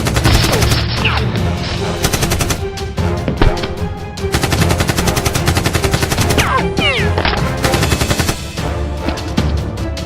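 Rapid bursts of automatic gunfire, a dubbed action-film gun sound effect, over action background music.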